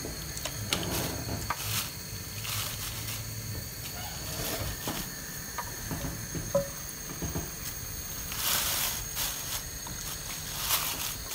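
Oil sizzling faintly in a non-stick frying pan as marinated chicken legs are laid in, with a few short louder hissing surges, one near the middle and two near the end.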